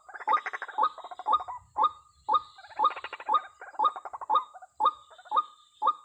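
White-breasted waterhen calling: a sharp rising note repeated about twice a second, with a rough chattering underneath in two stretches.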